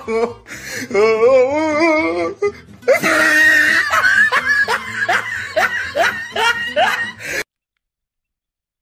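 Laughter over music: wavering, drawn-out laughing, then a fast run of short rising 'ha' sounds, cutting off abruptly to silence about seven and a half seconds in.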